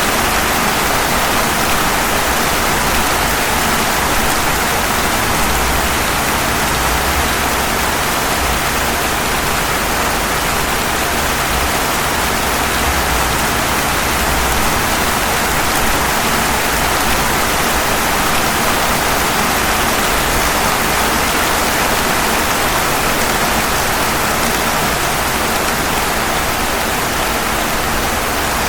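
Steady rain falling on pavement: an even hiss with a low rumble underneath.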